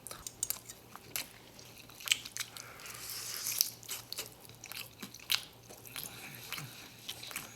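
Close-miked chewing of a mouthful of hot rice, with irregular wet mouth clicks and smacks.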